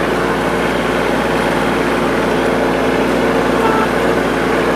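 Yanmar SC2450 compact tractor's diesel engine running at a steady speed.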